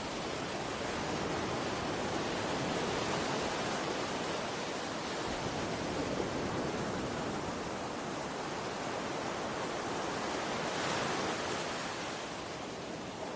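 Steady rushing noise with no distinct events, swelling and easing slightly every few seconds.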